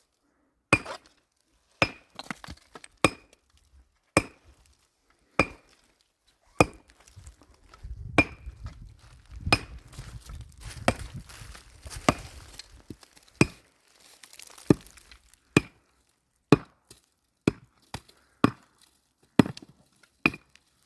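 A hand tool striking over and over at a steady pace, about one blow a second, each blow with a short metallic ring. Building work, with scraping or rustling between the blows in the middle stretch.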